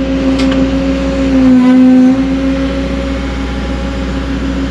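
Cat 307.5 mini excavator's diesel engine running steadily with its hydraulics working, with a brief louder, slightly lower-pitched stretch about a second and a half in as the hydraulics take load while the dozer blade is lowered.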